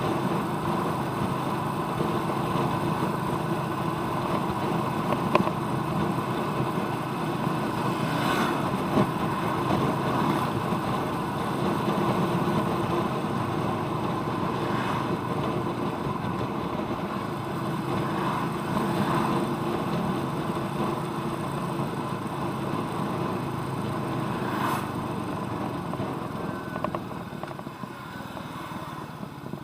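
Royal Enfield Meteor 350's single-cylinder engine running steadily as the motorcycle is ridden, getting quieter near the end.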